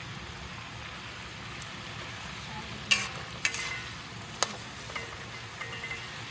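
Pork and sauce bubbling and sizzling in a wok, a steady hiss. A metal spatula knocks and scrapes against the wok three times around the middle, the first knock the loudest.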